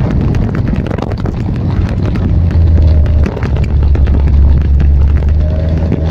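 Vespa scooter engines running while riding, with heavy wind buffeting on the microphone; the low engine rumble gets louder a couple of seconds in.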